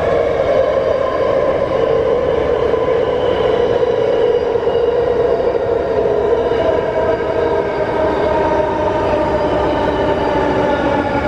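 Interior sound of a moving Warsaw Metro series 81 subway car (Wagonmasz 81-572.2/81-573.2 set) running through the tunnel: a steady loud rumble of wheels on rail with whining tones over it, which dip slightly in pitch during the first few seconds.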